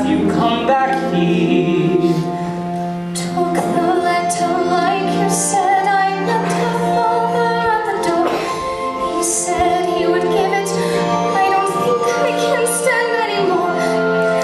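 Musical-theatre singing: a female voice singing held, slow lines over sustained instrumental accompaniment.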